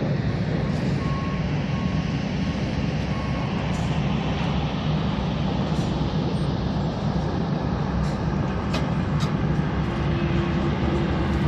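Steady rumble of heavy trucks and construction machinery. A reversing beeper sounds a short, regular beep during the first few seconds.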